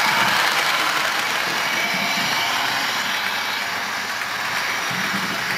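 Sound decoder in an OO gauge model of an NIR class 111 diesel locomotive playing its diesel engine sound through the model's small speaker as the train runs, a steady mechanical hum and hiss that grows slightly quieter.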